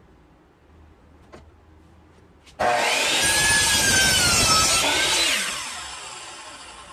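Power mitre saw switched on about two and a half seconds in and cutting through a stack of laminate flooring boards. Its blade whine dips as the blade bites and recovers, then the saw spins down and fades away.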